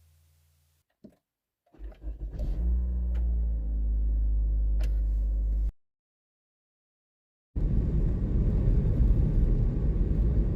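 An engine running with a low rumble for about four seconds, cut off suddenly; after a couple of seconds of silence, a rougher low rumble starts.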